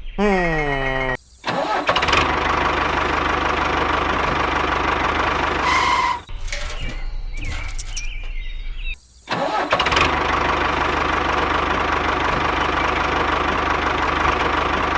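Engine-like running sound of a mini DIY tractor, steady with a hum near 1 kHz, cut off sharply a few times and restarting. It opens with a short falling sweep.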